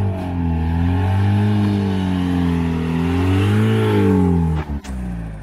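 Toyota pickup's engine revving up and down again and again as the truck works through deep mud and snow ruts, struggling for grip. The sound drops out sharply for a moment near the end, then the engine goes on quieter.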